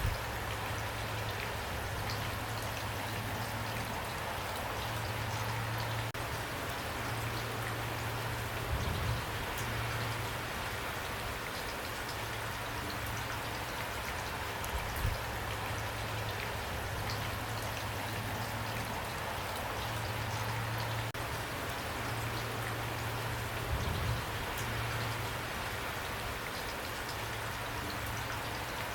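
Steady rain falling, an even hiss of drops with a few slightly louder single hits, over a low steady hum.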